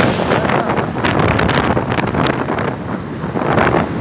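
Heavy wind buffeting on the microphone of a moving motorcycle at road speed, an irregular gusty rush that covers any engine or traffic sound.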